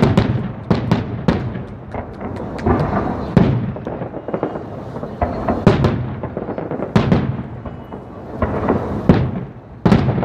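Aerial fireworks display: a rapid, unbroken series of shell bursts, sharp bangs and crackles one after another, each echoing after it.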